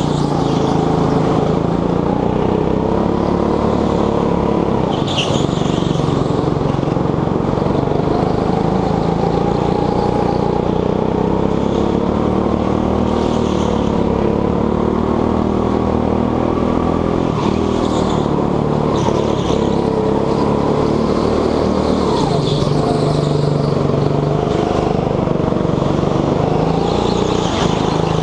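Petrol go-kart engine at racing speed, heard from the driver's seat. Its pitch rises and falls over and over as the kart speeds up and slows.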